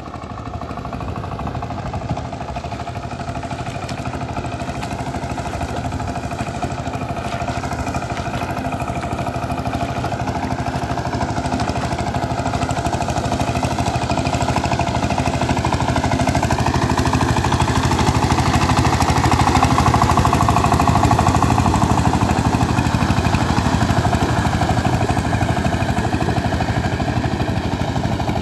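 Two-wheel power tiller engine running steadily under load while the tiller churns through a flooded paddy field. It grows louder as the machine comes closer, peaking about two-thirds of the way through, then eases off a little.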